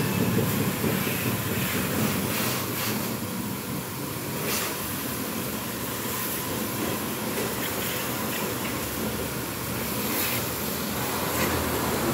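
Car-wash pressure washer running steadily, its motor humming under the hiss of the water jet spraying onto a car body, with a few short clicks and knocks.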